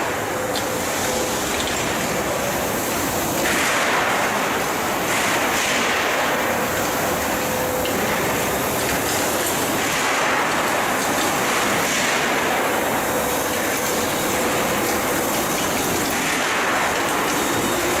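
KOHAN steel-coil cut-to-length line running: a steady mechanical rumble and rattle of the line processing steel strip, swelling every couple of seconds, with a faint hum running under it.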